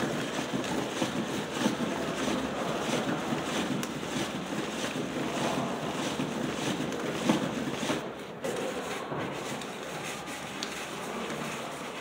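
Hand-cranked cardboard automata running: a continuous scraping, rubbing sound of cardboard cams, shafts and followers turning against each other, easing a little after about eight seconds.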